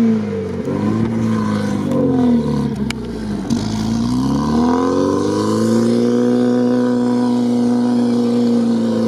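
UAZ Patriot's engine revving under load in deep snow: the revs dip and climb several times in the first few seconds, then hold high and steady.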